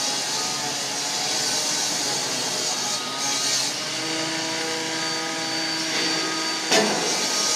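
Junttan hydraulic pile-driving rig running steadily without hammering, its engine and hydraulics making a continuous mechanical noise. A steady hum of several tones joins about halfway through, and a single sharp knock comes near the end.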